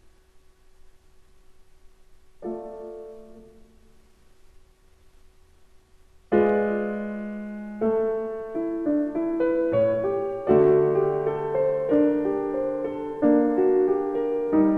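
Slow solo piano music: a few single notes and a chord ring out and fade over near quiet, then about six seconds in a louder passage of melody over chords begins.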